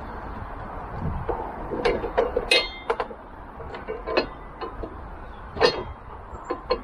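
Shad top-case rack parts and fittings being handled and fitted onto the scooter's tail: irregular light clinks and knocks of metal and hard plastic, one about halfway with a short metallic ring and a sharper knock near the end.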